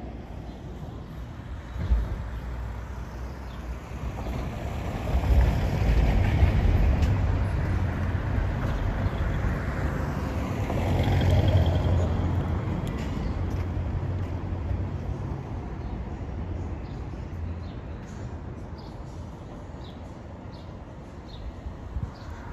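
A large motor vehicle with a low engine drone passing by: it grows louder over a couple of seconds, stays loud for several seconds, then fades away slowly.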